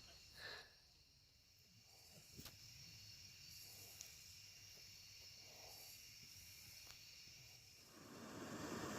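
Near silence: faint outdoor background, with a couple of faint brief knocks near the start and about two and a half seconds in.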